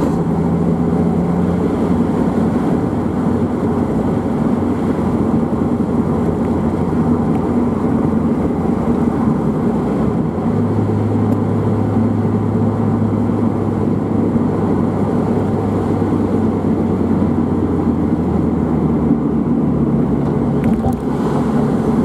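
2001 Mazda MX-5 NB-FL's 1.8-litre four-cylinder engine, fitted with a Jetex Fortex sport exhaust, running steadily at cruising revs, heard from inside the car over tyre and road noise. The engine note shifts slightly about halfway through.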